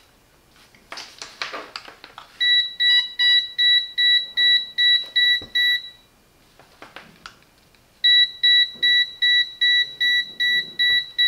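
KAIWEETS HT208D clamp meter's non-contact voltage (NCV) detector beeping rapidly at about four high-pitched beeps a second, signalling that it senses a live cable. The beeping runs for about three and a half seconds, stops, and starts again about eight seconds in. A brief rustle of handling comes about a second in.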